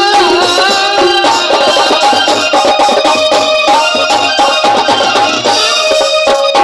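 Live folk band music: a clarinet playing a melody of held, gliding notes over a steady hand-drum rhythm with a rattle.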